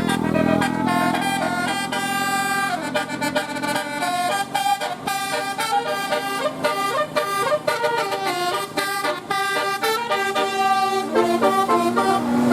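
A bus's multi-tone 'telolet' air horn playing a fast melody of stepped notes, over a steady low hum.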